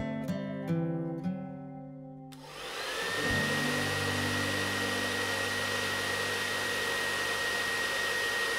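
Gentle guitar music, cut off about two seconds in as a stand-mounted pet grooming blow dryer starts up. Its whine rises quickly and settles into a steady rush of air with one high tone held through the rest.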